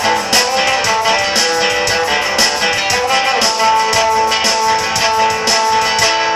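Guitar strummed in a steady rhythm, several strokes a second over ringing chords. The strumming stops just before the end and the last chord rings on and fades.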